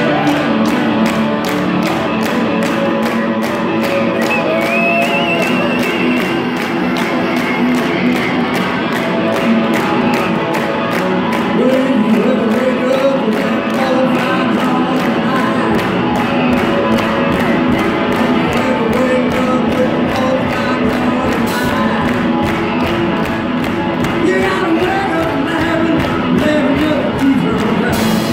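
Live blues-rock band playing loudly: electric guitar, bass guitar and a Ludwig drum kit keeping a steady beat, heard from the floor of the venue.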